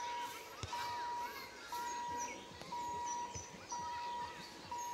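A steady electronic beep repeating about once a second, each beep about half a second long, over birds chirping and calling.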